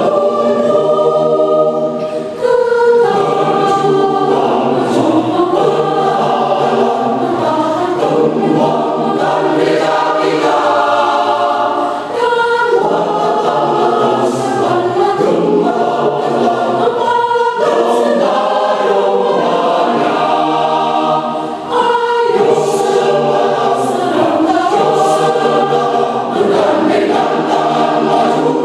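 Church choir singing, many voices together, with a brief dip between phrases about every ten seconds.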